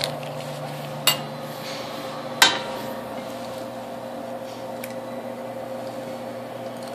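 An egg being cracked over a Pizzazz rotating pizza oven: three sharp taps of the shell, the last and loudest about two and a half seconds in. Under them runs the steady hum of the oven's turning tray.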